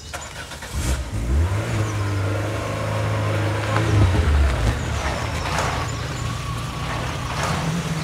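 A large car's engine running as the car drives up: a low engine note comes in about a second in and holds steady.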